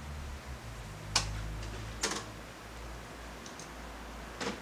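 Standing Seibu 4000 series electric train: a low steady hum, broken by three sharp clicks with a short ringing tail, one about a second in, one about two seconds in and one near the end.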